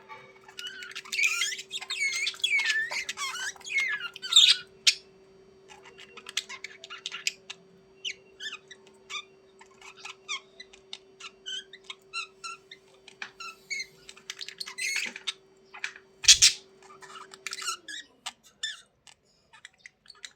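Budgerigars chattering: a dense warbling run of rising and falling chirps for the first few seconds, then scattered short chirps and clicks. A sharp knock sounds late on, and a faint steady hum underneath drops in pitch and stops near the end.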